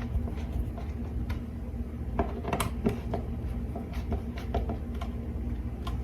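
Light, irregular plastic clicks and taps as a smoke alarm's mounting base is screwed tight to the ceiling, over a steady low hum.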